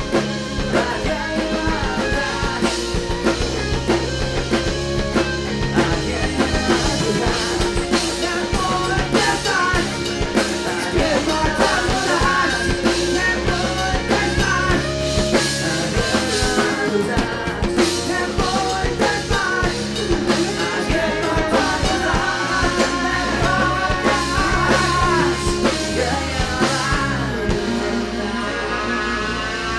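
Live rock band playing a song with drum kit, guitar and singing.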